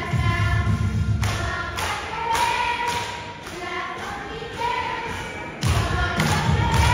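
Children's choir singing a gospel song with accompaniment, over a steady thumping beat a little under two beats a second. The low, full part of the accompaniment thins out for a few seconds mid-way and comes back in strongly near the end.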